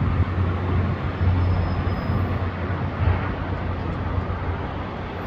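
Steady, distant roar of city street traffic heard from high above, with a strong low hum underneath.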